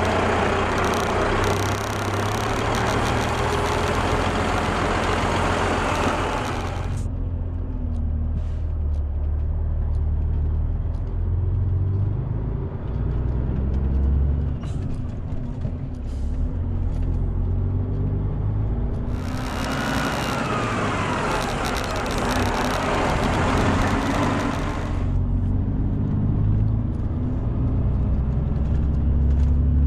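Vehicle engine running steadily while driving on a rough road. There are two stretches of loud rushing noise over it: one for the first several seconds, and one from about twenty seconds in, lasting several seconds.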